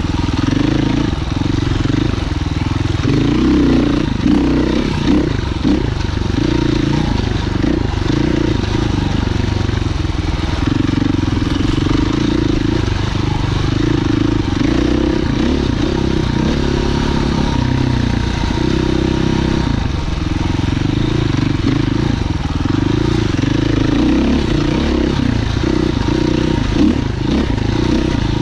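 Husqvarna FE 501 enduro motorcycle's single-cylinder four-stroke engine being ridden, its pitch rising and falling continuously with the throttle.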